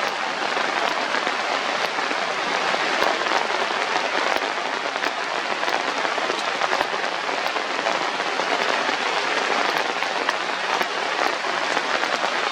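Steady rain falling: a dense, even hiss with scattered faint clicks.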